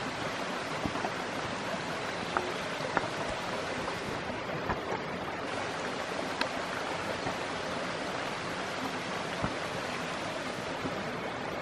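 Steady rushing outdoor background noise, with a few faint short clicks scattered through it.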